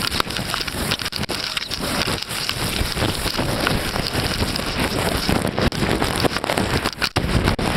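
Wind buffeting the microphone, mixed with irregular crumpling and scuffing of sailcloth and handling against the camera as the spinnaker is gathered in.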